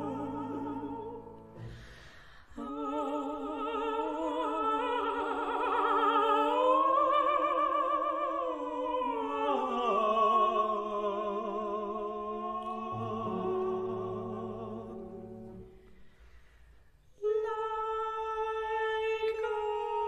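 A female operatic mezzo-soprano sings long sustained phrases with a wide vibrato, climbing to high notes and then descending, over a quiet accompaniment. The voice drops out briefly about two seconds in and again near the end, where a steadier held tone with little vibrato comes in.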